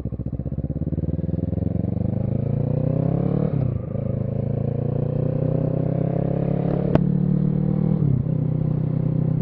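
Kawasaki Z650 parallel-twin engine pulling from low revs and accelerating, its pitch climbing steadily, with upshifts about three and a half seconds in and again about eight seconds in, then holding a steady pitch. A single sharp click sounds about seven seconds in.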